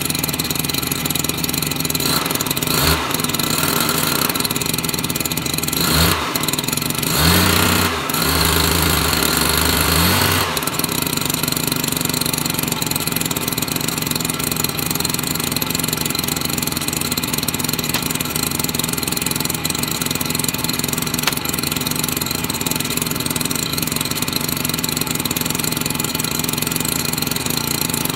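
STIHL backpack mist blower's small two-stroke engine running after a choke start to warm up. It is revved briefly about three and six seconds in, held at higher revs from about seven to ten seconds in, then idles steadily.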